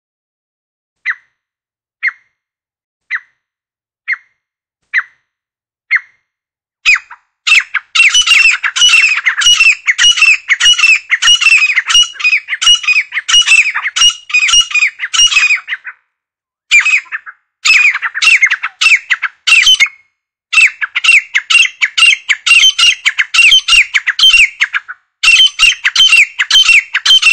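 Grey francolin calling: six short single notes about a second apart, then from about seven seconds in a loud, fast run of repeated falling notes, broken by a few brief pauses.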